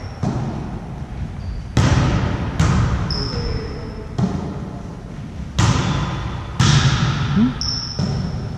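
A volleyball being struck by hands and bouncing on a gym floor: a series of sharp slaps and thuds, about one a second, each ringing in the big hall's echo. A couple of brief high sneaker squeaks on the floor cut in between them.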